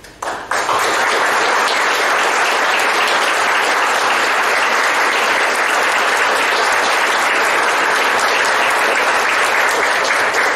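Audience applauding: it breaks out within the first half-second and keeps up at an even level.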